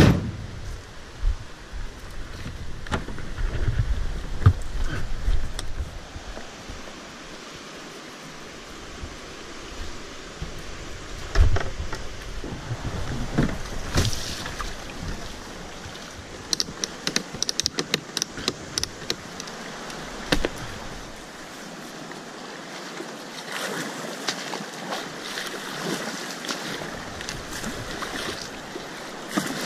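Whitewater kayak putting in and paddling on a high, fast river: steady rushing water with paddle splashes and scattered knocks and clicks. Low rumbling runs through the first few seconds.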